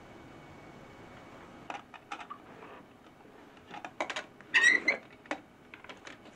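Scattered light clicks and knocks, then an old wooden drawer dragged open with a short scraping squeak, the loudest sound, about two-thirds of the way in. A few soft taps follow as a hand rummages inside the drawer.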